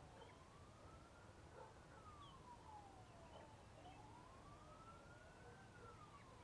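Distant emergency-vehicle siren wailing, its pitch slowly rising and falling about twice, faint over a steady background of rain.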